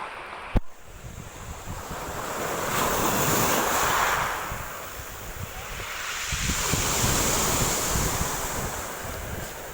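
Sea waves washing onto the shore, swelling up twice, with wind buffeting the microphone; a sharp click just after the start.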